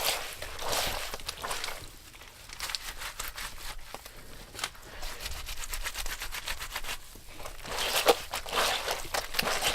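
Clothes being washed by hand: fabric rubbed and scrubbed in repeated swishing strokes. It is louder in the first couple of seconds and again near the end, with softer crackly rubbing in between.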